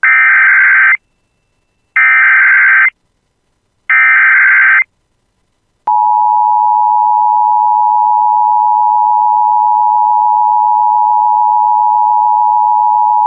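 Emergency Alert System header: three one-second bursts of warbling data tones, followed about a second later by the long, steady EAS attention tone.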